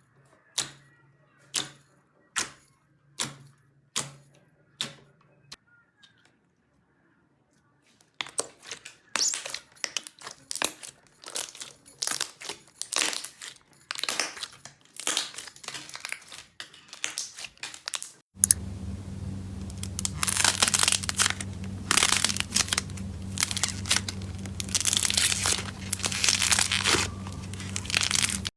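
Slime being squeezed and worked by hand close to the microphone: first a run of sharp clicks, roughly one a second, then after a brief pause dense crackling and crinkling that runs on, joined by a steady low hum near the end.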